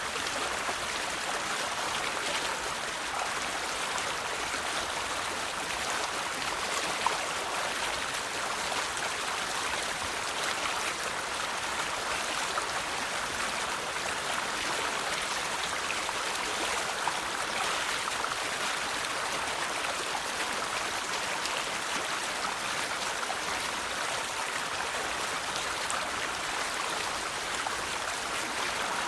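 River water flowing over rocks: a steady, even rushing with fine splashing and babbling.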